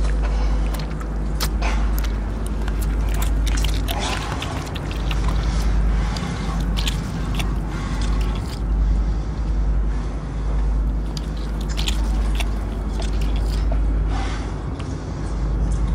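Wet, gory biting, tearing and chewing of flesh, many short squelching smacks in irregular succession, over a steady low drone.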